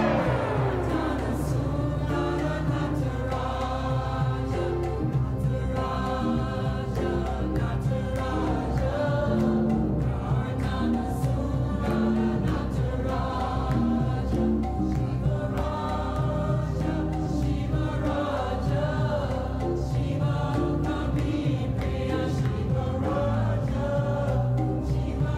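Devotional Hindu chant music: a choir singing over a steady low drone, opening with a falling sweep in pitch in the first second or so.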